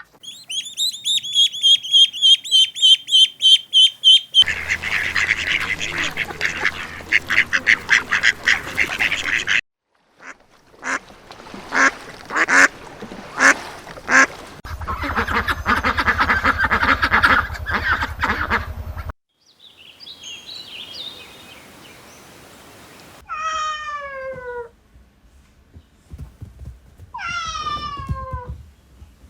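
Ducks quacking in rapid runs. Before them comes a run of high repeated peeps, and near the end come two long calls that fall steeply in pitch.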